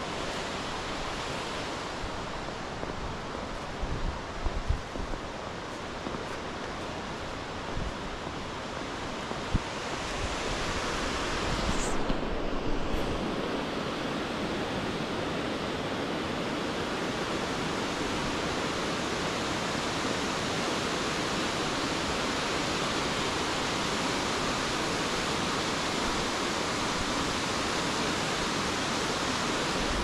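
Rushing water of a waterfall and river, a steady, even roar, with a few brief low bumps of wind on the microphone.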